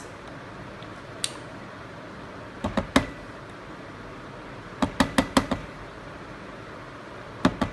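Light knocks and clicks of dishes as mayonnaise is tipped from a bowl into a plastic food-chopper bowl. There is a single tap about a second in, then short clusters of two to four taps a couple of seconds apart.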